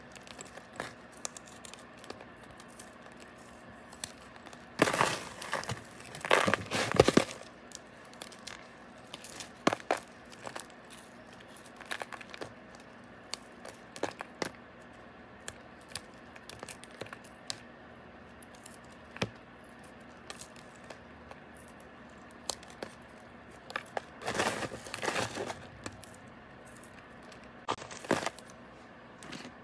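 A homemade para moth bar crushed and crumbled by hand: scattered crisp crackles and clicks, with two longer bouts of crunching, one about five seconds in and another near the end.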